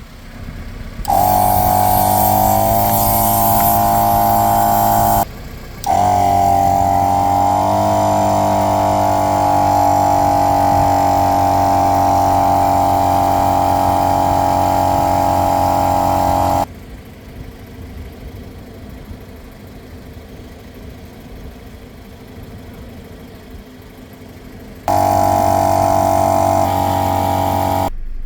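Portable electric air compressor running with a steady motor hum and whine. It is switched on about a second in, stops briefly around five seconds, runs again until about sixteen seconds, is off for about eight seconds, then runs again near the end. Its pitch settles slightly lower just after each start.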